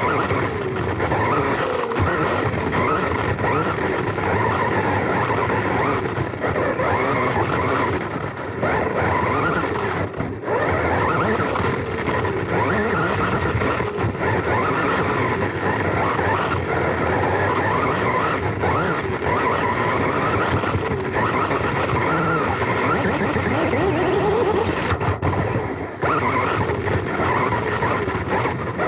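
Onboard sound of a Serpent SDX4 electric 4wd RC buggy racing: brushless motor and drivetrain whine rising and falling with the throttle over tyre and wind noise, with brief drops in level about ten seconds in and again near the end.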